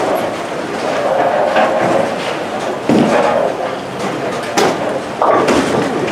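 Bowling alley din: balls rumbling down lanes and pins clattering, with several sharp crashes, and voices chattering in the background.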